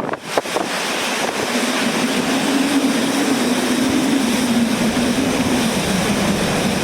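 Strong hurricane wind rushing and buffeting the microphone, with a low wavering drone from about a second and a half in until near the end.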